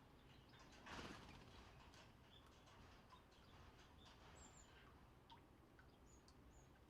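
Faint, scattered short high chirps of small birds visiting a garden plum tree, over quiet outdoor background, with a brief soft rush of noise about a second in.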